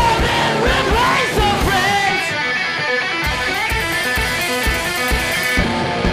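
Noise/sludge rock band recording: distorted electric guitars with sliding, bending notes over heavy drums. From about three seconds in, rapid cymbal strokes run until shortly before the end.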